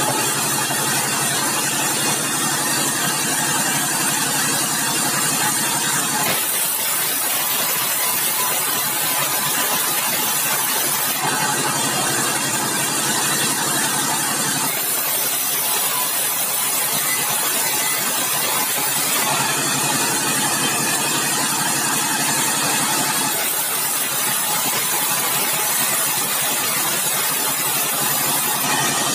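Large sawmill band saw running and ripping bengkirai hardwood boards fed through by hand. The steady pitched hum of the machine gives way to a rougher, noisier sound for about five seconds at a time, three times, then returns.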